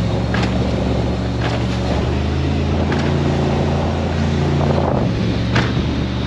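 27-foot Baja powerboat's engine droning steadily while underway, with wind rushing over the microphone and the hull slapping the chop several times.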